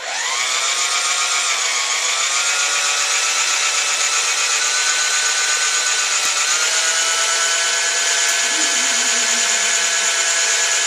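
Electric drill spinning up and running steadily, turning a 5/16-inch mandrel that winds wire into a tight coil. Its whine dips slightly about two seconds in, then holds steady.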